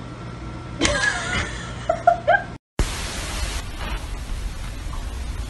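A few short voice-like sounds about a second in and again around two seconds, three quick ones in a row. Then, after a sudden cut, a steady hiss with a low rumble.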